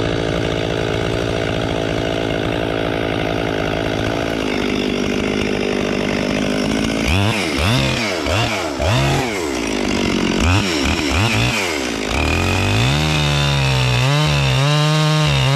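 Husqvarna 257 two-stroke chainsaw idling, then revved in several quick bursts, then held at high revs while bucking a felled log, its pitch wavering under the cut.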